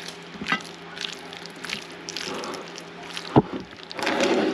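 Hand tossing raw, seasoned shrimp and lobster meat in a plate: soft wet squishing with small clicks. A sharp knock comes a little over three seconds in.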